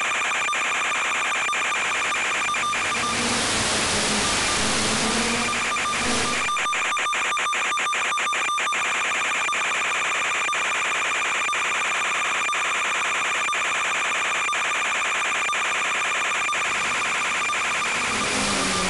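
Steady electronic buzz with a high whine and fast, even clicking, the interference carried on an analog FPV video link's audio channel. About three seconds in it turns into a rush of static for about three seconds, where the video signal breaks up, then the buzz returns.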